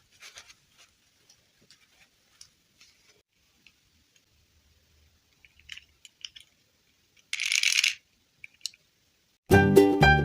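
Faint, scattered small clicks and taps from handling small toy or craft objects, with one short swish about seven seconds in. Piano music starts near the end.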